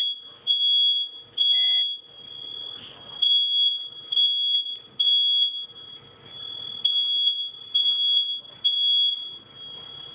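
Fire alarm sounding a continuous high-pitched tone, its loudness swelling and dropping roughly once a second.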